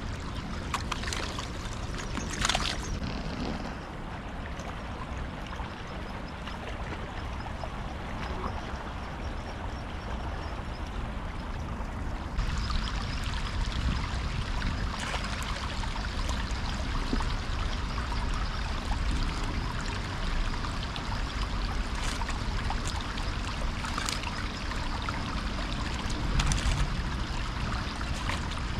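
Shallow river running over stones, a steady rush of flowing water that grows a little louder and brighter about twelve seconds in, with a few brief clicks and rustles scattered through it.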